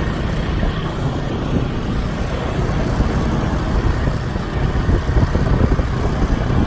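Steady rumble of a motor vehicle on the move: engine and road noise, heaviest in the low end.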